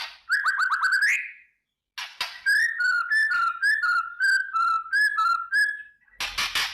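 White-rumped shama singing: a quick run of rising whistled notes, then a string of clear whistles alternating with higher chirps, about two a second. Near the start of the whistled string and again near the end come harsh, rasping chatter bursts, the shama's 'kretekan' crackle.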